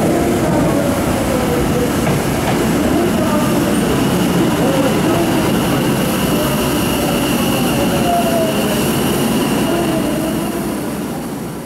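Tokyo Metro 10000 series subway train pulling into the platform and slowing, its wheels and motors running loudly with wavering whines. A thin high squeal sounds through the middle of the stop. The sound fades out near the end.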